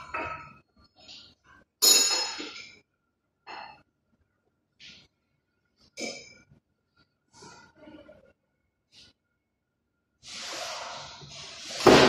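Workshop clatter of hand tools and metal engine parts: a sharp ringing metal clank about two seconds in, a few lighter knocks and clinks, then a longer scraping rattle of metal near the end, loudest at its close.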